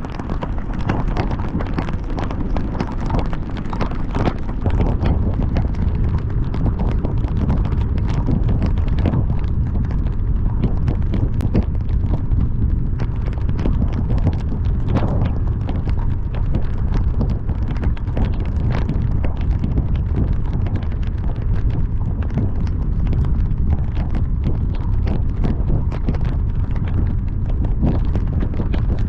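Heavy rain pelting a moving car, a thick patter of drops over a steady low rumble of wind and road noise.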